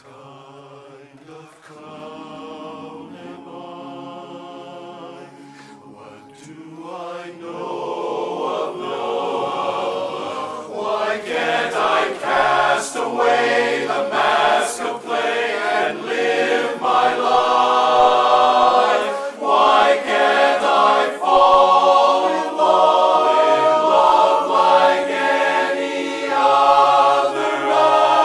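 Men's barbershop chorus singing a cappella in close harmony. It starts quietly and swells to full voice over the first dozen seconds, then stays loud.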